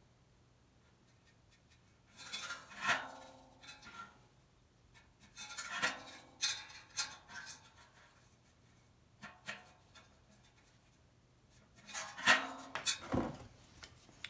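Metal pieces being handled and shifted, in about four short bouts of scraping and clinking with quiet gaps between.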